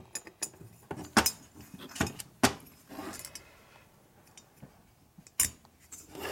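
Irregular sharp metallic clinks and knocks of a Harley-Davidson Evolution aluminium cylinder head and hand tools being handled on a workbench during valve-seal fitting, with faint rattling between.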